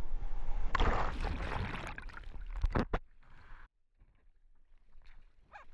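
Ocean waves rushing and splashing right at a camera in the surf: a loud wash of breaking whitewater about a second in, a few sharp splashes near three seconds, then the sound drops away to a faint wash with small splashes.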